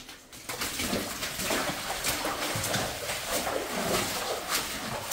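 Rubber boots wading through shallow muddy water, an irregular run of splashing, sloshing steps that starts about half a second in.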